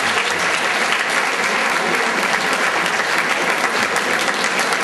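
A theatre audience applauding steadily, a dense clapping of many hands for the cast's curtain call.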